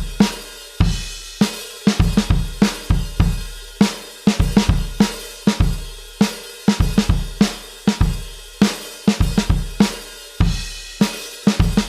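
Alternative rock drum kit loop: kick, snare, hi-hat and cymbals playing a steady rock beat, with no other instruments.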